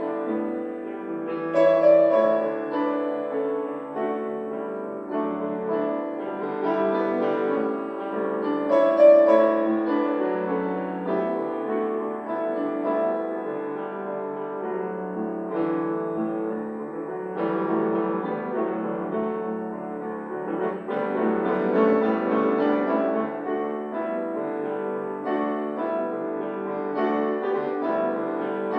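Live solo piano music: a steady stream of sustained, overlapping notes.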